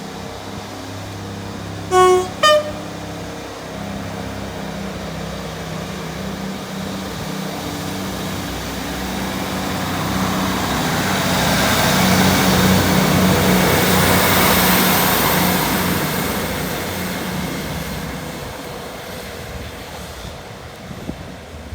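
A train horn sounds two short notes about half a second apart, the second higher than the first. Then a diesel train's engine drone grows louder to a peak and fades away as the train passes.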